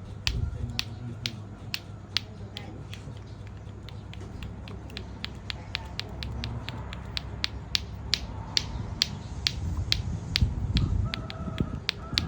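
A steady series of sharp clicks, about two to four a second, over a low rumble.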